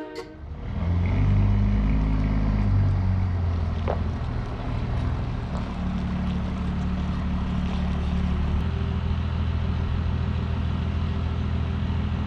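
A vehicle engine running steadily with a low drone; its pitch shifts during the first few seconds, then holds, and the sound cuts off abruptly at the end.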